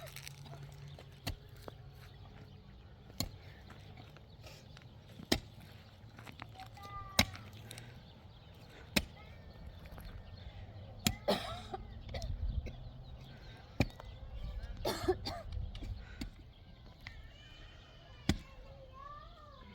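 Repeated sharp knocks, roughly one every two seconds, over a low steady hum, with a few short chirping calls near the middle and near the end.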